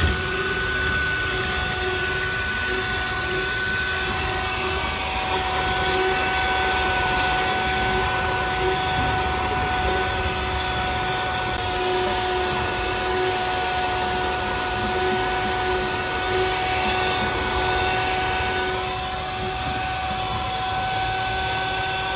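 Philips electric hand mixer running at a steady pitch, its beaters whisking eggs to a froth in a stainless steel bowl.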